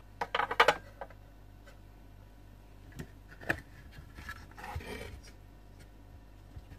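Handling noises of a body control module circuit board on a workbench: a quick clatter of clicks at the start, one sharper click about halfway through, then a short scrape as the board is slid and lifted off the bench.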